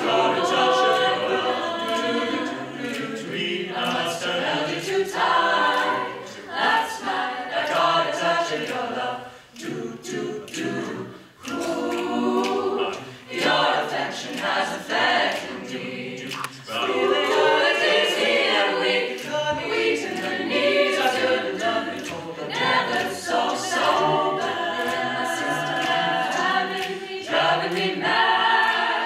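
Mixed-voice a cappella group of men and women singing in harmony, voices only with no instruments, with brief dips between phrases.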